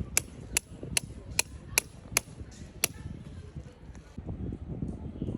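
A hammer driving a tent peg into the ground: about seven sharp, evenly spaced strikes, roughly two and a half a second, stopping about three seconds in.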